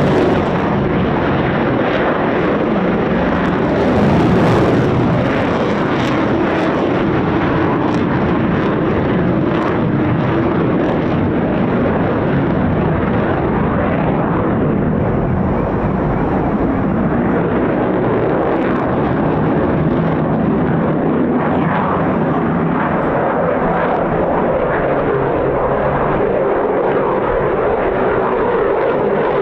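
Eurofighter Typhoon fighter jet in display flight: the loud, steady noise of its twin EJ200 jet engines.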